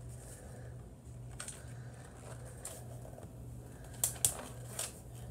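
A few short rustles and taps of magazine pages being handled and turned, the sharpest pair about four seconds in, over a steady low hum.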